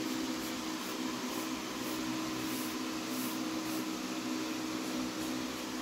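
Steady hum and hiss of a running fan, with a few low hum tones held throughout.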